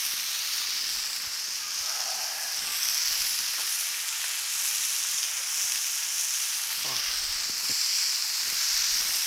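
Hamburger patties sizzling steadily as they fry in bacon grease on a Blackstone flat-top griddle.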